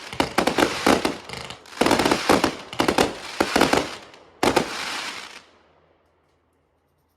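Fireworks going off in rapid volleys of sharp bangs and crackling, with a last burst about four and a half seconds in, then dying away.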